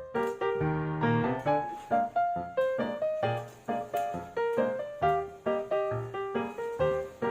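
Background piano music with a steady rhythm and bass line.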